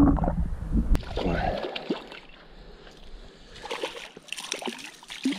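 Water splashing and sloshing in short bursts, after a low rumble that stops about a second and a half in.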